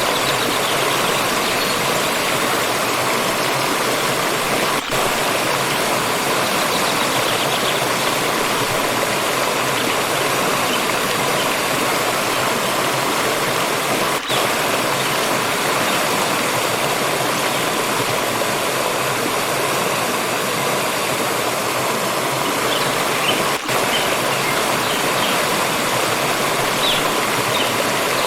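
Stream water flowing with a steady rush, with three brief dips in level.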